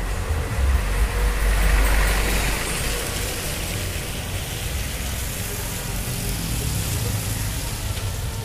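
Street traffic noise: a motor vehicle passes close by, loudest about one to two seconds in, over a steady rumble of road traffic.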